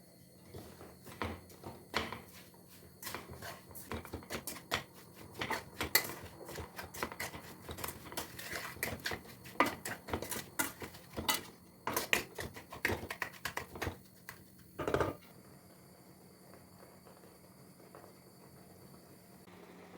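Kitchen clatter: irregular light clicks and knocks of utensils and dishes being handled, for about fourteen seconds, with a short louder sound about fifteen seconds in before it goes quiet.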